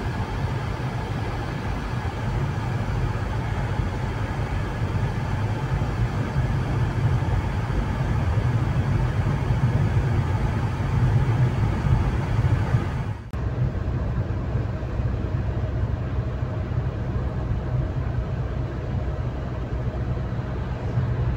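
Car driving at road speed heard from inside the cabin: a steady drone of engine and tyres on the road. About two-thirds of the way through it dips abruptly for a moment and carries on, slightly duller.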